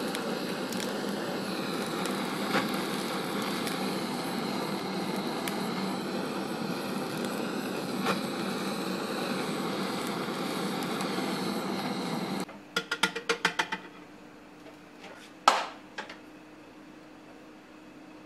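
A handheld kitchen gas torch hissing with a steady, loud rush as it flame-sears the skin of flutemouth slices for aburi sushi, then cut off abruptly. A quick run of light clicks and one sharp clack follow.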